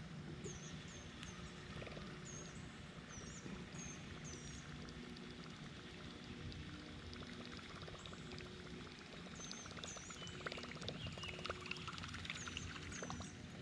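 Faint pond-side ambience: a bird repeats short, high, hooked chirps every second or so, over a low steady drone. A run of faint quick clicks comes in near the end.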